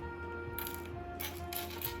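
Background music with held tones, over which small model parts clatter and click in short bursts several times as they are handled.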